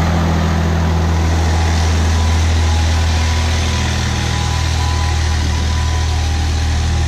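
Türk Fiat farm tractor's diesel engine running with a steady low note, loud and close, as it slowly tows a loaded trailer past.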